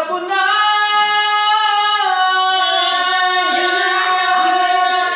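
A man singing one long, high held note into a handheld microphone, the pitch dipping slightly about two seconds in.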